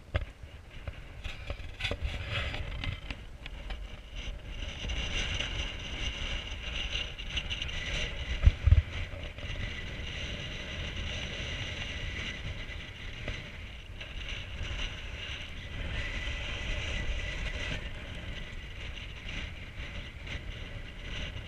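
Wind buffeting the microphone as a low, uneven rumble, with a steady high whine over it. One heavy low thump comes about nine seconds in.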